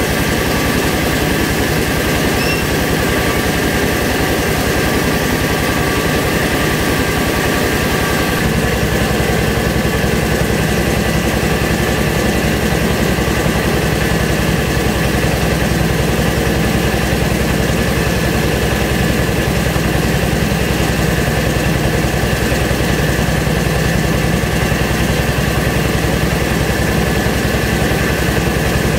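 Engine-driven mobile rice milling machine running steadily while milling paddy, a constant loud machine drone. About eight seconds in its sound shifts to a deeper, fuller drone.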